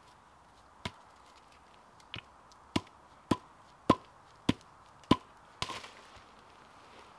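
Wood being chopped: a run of sharp knocks, about one every half second through the middle, with a longer, rougher strike near the end.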